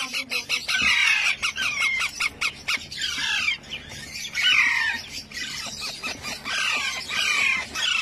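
Young ringneck parakeet chicks squawking: harsh, downward-sliding calls repeated every second or so, with quick clicks in between.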